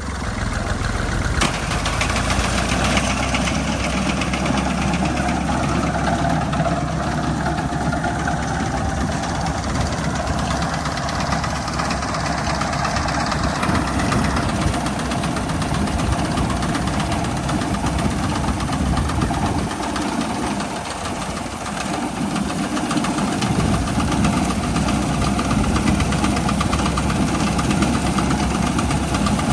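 Al-Ghazi 65 hp tractor's diesel engine running steadily with a knocking chug, its low rumble easing briefly around twenty seconds in before picking up again.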